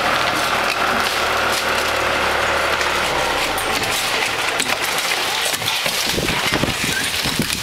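Old asphalt roof shingles being torn off with roofing shovels and pry bars: a dense run of scraping, cracking and knocking. For the first few seconds a steady engine hum runs underneath, and heavier knocks come in the second half.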